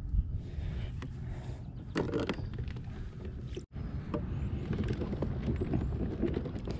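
Steady low rumble with scattered light clicks and knocks as a soft-plastic swim shad is handled and the spinning rod picked up. The sound drops out for an instant just past halfway.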